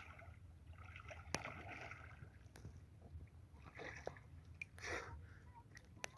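Faint water sloshing and splashing in a few short gushes, with scattered light clicks over a steady low rumble.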